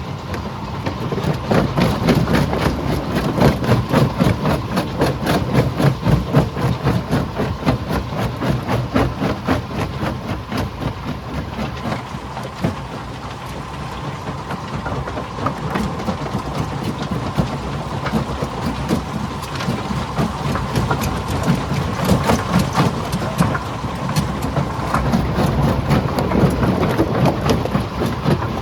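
Stone crusher running under load, with a dense, irregular clatter of rocks being broken over a steady machine drone and a faint steady whine.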